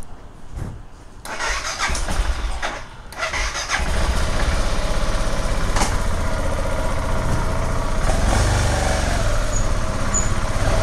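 BMW GS 650 motorcycle engine being started: the starter cranks for a couple of seconds, the engine catches about four seconds in, then idles steadily.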